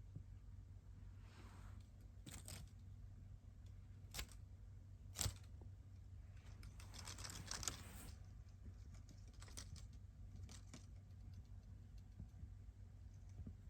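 Faint scattered clicks and a brief rustle over a low steady hum: small handling or movement noises.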